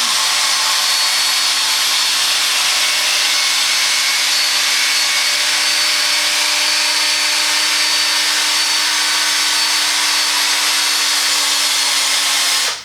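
Power buffer spinning a foam pad against a plastic headlight lens with finishing polish, a steady whirring hum that cuts off suddenly at the end.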